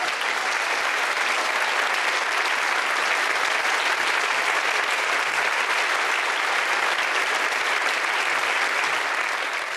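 A theatre audience applauding steadily, many hands clapping together.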